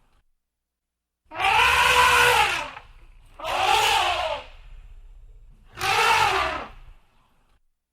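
Elephant trumpeting: three loud, brassy calls about a second long each, every one rising and then falling in pitch over a low rumble.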